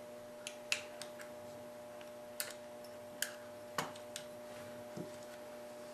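Scattered light clicks and taps, about eight in all at irregular intervals, from handling a Smith & Wesson M&P polymer pistol frame and small tools on a workbench, over a faint steady hum.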